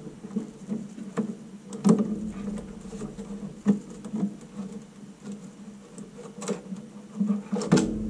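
Motherboard being worked loose from its metal tray inside a plastic all-in-one PC shell by hand: irregular light clicks, taps and rattles of circuit board against metal and plastic, with a few sharper knocks, the last near the end.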